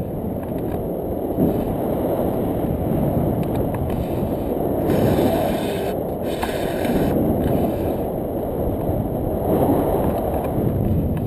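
Wind rushing over an action camera's microphone in the airflow of a tandem paraglider in flight: a steady low rumbling noise, with a hissier stretch around the middle.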